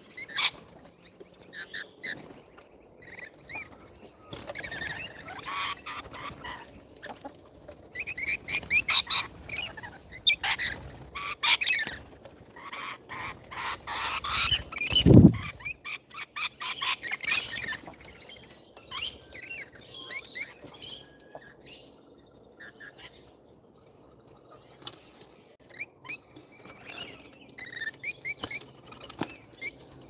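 A flock of rainbow lorikeets chattering and screeching at a seed feeder, in bursts of rapid scratchy calls mixed with wing flaps. The calls are busiest in the middle, and there is a single low thump about halfway through.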